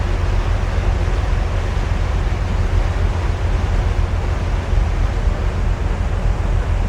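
Wind buffeting the microphone over a steady rush of water and engine noise from a moving boat, a heavy low rumble under an even hiss.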